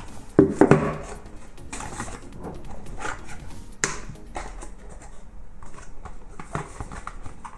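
Cardboard packaging of a power bank box being handled and opened by hand, with rustling and small clicks. A short loud knock comes about half a second in, and a sharp click near four seconds.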